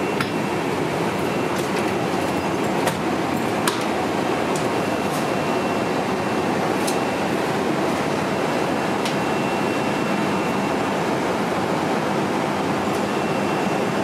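Steady rushing air-conditioning noise inside a parked Boeing 777 freighter, with a faint high whine running under it and a few sharp clicks in the first half.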